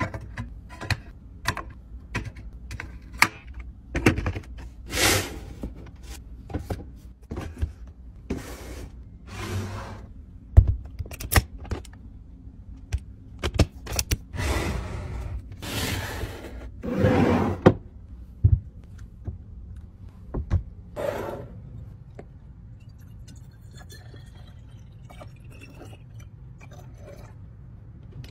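Close-up handling of plastic bins, bottles and containers: a string of clicks, taps and knocks as things are set down and lids pressed shut, with several longer rustling or scraping noises in between. It goes quieter for the last several seconds.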